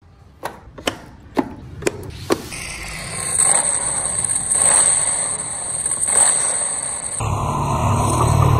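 A handful of sharp clicks as the wooden model pickup's parts are handled, then a steady car engine sound with a hiss over it as smoke blows from the tailpipe. About seven seconds in it changes to a lower, fuller engine rumble.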